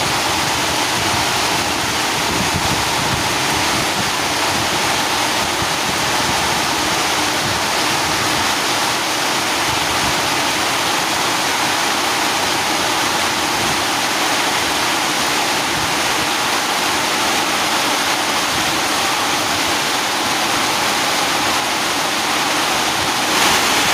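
Very heavy rain pouring down steadily in a storm: a dense, even rushing noise.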